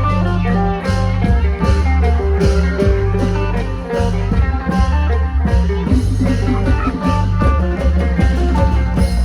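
Isan klong sing procession band playing: a plucked electric phin melody over a heavy bass and a steady drum beat.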